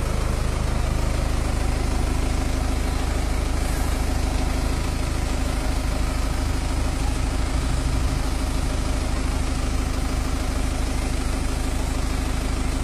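Aerial ladder fire truck's engine idling steadily with a low rumble and a constant hum.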